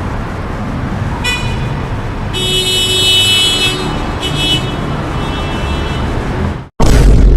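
City traffic sound effect: steady road traffic noise with car horns honking several times, the longest honk lasting about a second and a half. It cuts off near the end and a loud, deep sound begins right after.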